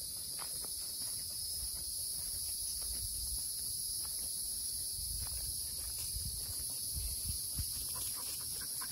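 Steady, high-pitched insect chorus buzzing without a break, with soft footsteps on a sandy dirt track and low rumble underneath.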